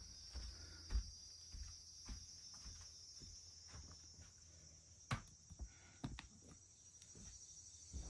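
A steady, high chirring insect chorus from outside, with soft footsteps about once a second in the first half and a few sharp clicks around the middle.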